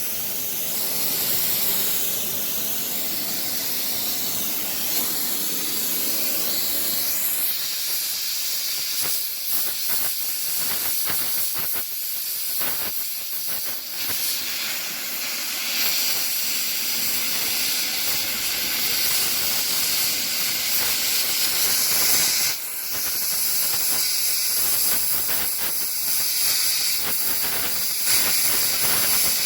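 A loud, steady hiss of gas rushing under pressure, crackly and uneven for a while in the middle, with a brief break about two-thirds of the way through.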